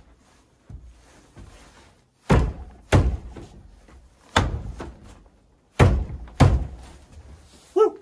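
Heavy wooden thunks on a plank cabin door fitted with a new hand-carved handle: five knocks, a pair, a single, then another pair.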